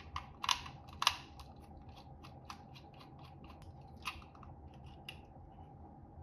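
Small screwdriver ticking and scraping against the plastic and metal of an Insteon SwitchLinc dimmer switch while the switch plate cover is unscrewed and lifted off. The clicks are light and scattered, with the sharpest about half a second in, a second in, and again about four seconds in.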